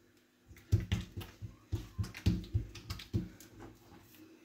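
Oiled hands patting and pressing msemen dough flat against the counter: a run of soft slapping taps, about three a second, that thins out after about three seconds.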